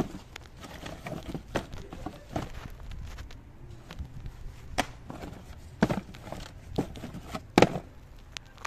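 Cardboard shoe boxes and sneakers being handled and shifted: irregular knocks, scrapes and rustles, with the loudest knock near the end.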